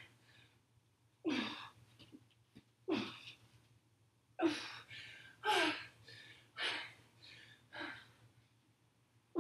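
A woman's forceful, breathy exhales with a little voice in them, six of them about a second or so apart, over a faint steady low hum. The hard effort breathing comes with each rep of an exhausting plank-hop and push-up set.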